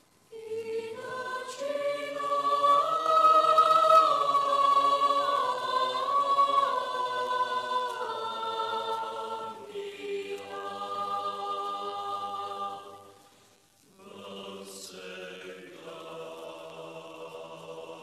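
A choir singing unaccompanied chant, several voices holding long notes that step from pitch to pitch. It breaks off briefly a little past halfway and resumes more softly.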